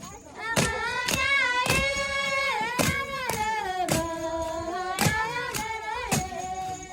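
Background music: a sung melody over a steady beat of sharp percussive hits about twice a second.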